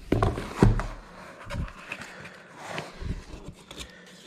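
A cardboard box being handled and its lid opened: a few knocks and scrapes of cardboard, the loudest about half a second in.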